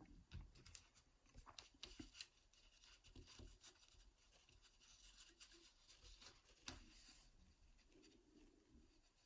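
Faint, irregular small clicks and scratches of a lock pick and tension wrench working inside a small Union padlock.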